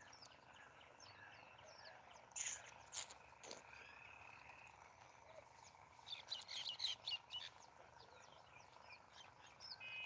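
Faint chirping of small birds, scattered short high chirps throughout with a louder run of them about six to seven and a half seconds in.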